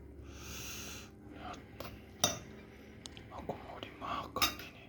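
Eating sounds at a crab meal: a soft hiss early on, then scattered sharp clicks and clinks of crab shell and utensils against a plate, the loudest about two seconds in and a cluster near the end.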